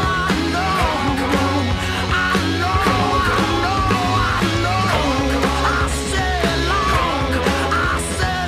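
Rock music playing, a wavering lead melody over a steady bass.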